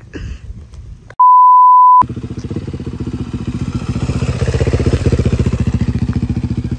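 A steady one-tone censor bleep about a second in, lasting under a second. Then a KTM 390 Adventure's single-cylinder engine chugging at low revs with an even, rapid beat as the bike is ridden slowly down a rough dirt track.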